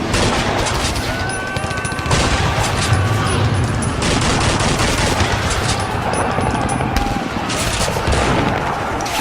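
World War II battle sound effect: dense, continuous rifle and machine-gun fire, many shots overlapping without a break.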